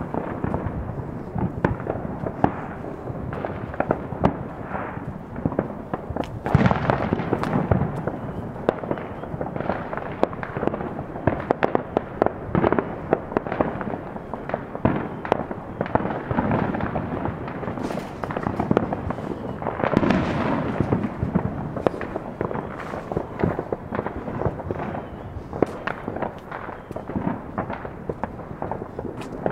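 Consumer fireworks and firecrackers going off continuously, a dense crackle of many overlapping small pops and bangs. It swells louder about a quarter of the way in and again about two-thirds through.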